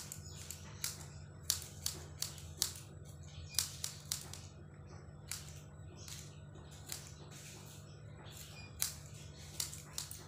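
Scissors snipping through a strand of long hair: a dozen or so short, sharp clicks at an uneven pace, over a steady low hum.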